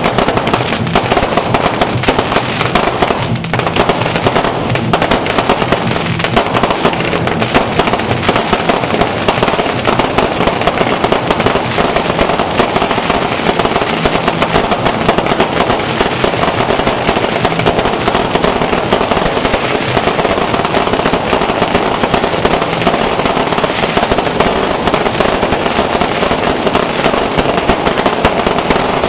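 Fireworks and firecrackers going off in a dense, continuous barrage, an unbroken loud crackling with no pause.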